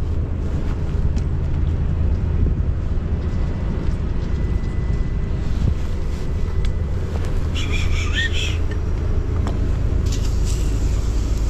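Steady low rumble, with a brief high chirp about eight seconds in.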